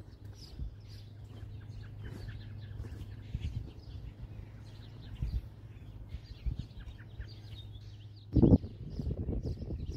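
Birds chirping and twittering over a low steady hum, with a few soft knocks and one loud thump about eight and a half seconds in.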